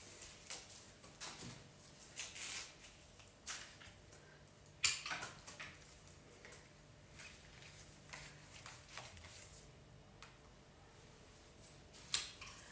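Foliage sprigs and flower stems being handled and worked into a basket arrangement: scattered soft rustles and light clicks, the most distinct about five seconds in.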